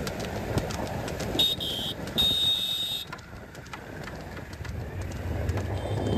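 Vehicle engines and road noise, broken by two short shrill tones between one and three seconds in. A low engine rumble swells near the end.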